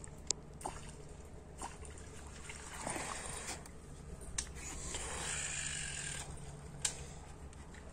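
Faint water sounds with a few light clicks over a low steady hum, a little louder from about three to six seconds in.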